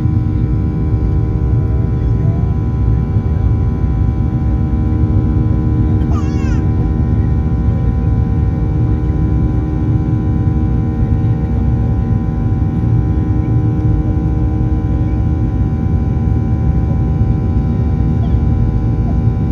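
Steady cabin noise inside a Boeing 737-800 airliner: the drone of its CFM56-7B engines and airflow, with many steady tones running through it. A brief high squeak comes about six seconds in.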